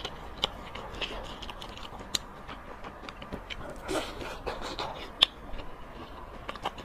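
Close-miked eating: a person chewing with wet mouth clicks, then biting into a soft egg pancake about four seconds in. A single sharp click a little after five seconds is the loudest sound.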